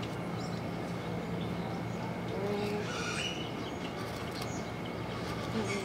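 A few short bird calls over a steady low hum: brief low notes about two and a half seconds in and again near the end, with a higher chirp around three seconds.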